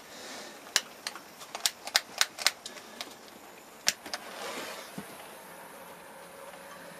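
Mini blowtorch's igniter clicking about ten times in quick succession, then a short rush of noise as the torch lights, settling into a steady faint burn.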